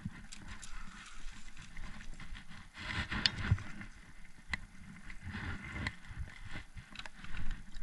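Footsteps on a forest floor of dry leaves, pine needles and twigs, with irregular rustling and small knocks of clothing brushing close by.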